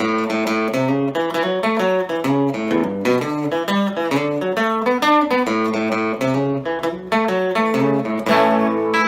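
Epiphone Casino hollow-body electric guitar played through a Vox AC15C1X amp on its Top Boost channel: a run of picked notes and chords. A strummed chord about eight and a half seconds in is left ringing.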